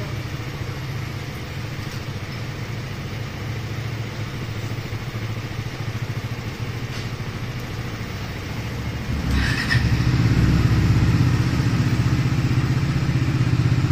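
Motorcycle engine running at idle, with a steady low rumble; about nine and a half seconds in it becomes much louder and stays so.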